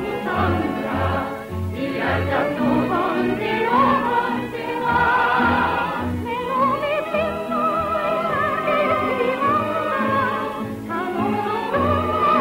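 A woman sings a Swedish love song in long, gliding phrases over instrumental accompaniment with a steady bass beat, as heard on an old film soundtrack.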